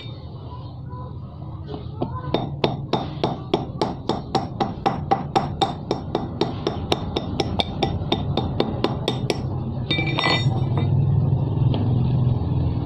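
Rapid metal-on-metal tapping, about four even strikes a second, starting about two seconds in and stopping near the tenth second, as a metal tool is hammered to knock the damaged valve out of a motorcycle inner tube.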